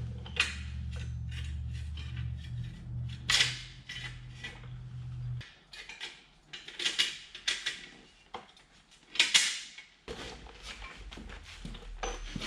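Metal parts clanking and clinking as a truck's wheel hub assembly, rotor and tools are handled during reassembly, with several sharp knocks. A low steady hum runs under the first five seconds, stops, and comes back near the end.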